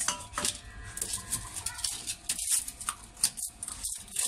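Plastic-and-foil blister pack of deworming tablets crackling and clicking as a tablet is pressed out, a run of short irregular crackles, mixed with a puppy shifting and sniffing close by.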